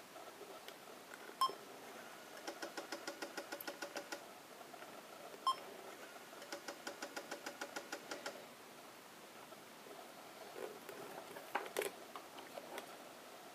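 A Sony Mavica FD90 camera beeps at a button press, then its built-in floppy disk drive ticks rapidly over a steady hum for about two seconds as it reads a picture off the disk. This happens twice. A couple of sharp clicks near the end come from the camera's mode switch being moved.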